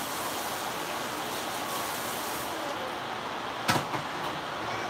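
Steady hiss with a single sharp knock about three and a half seconds in, as something is set down at the kitchen counter.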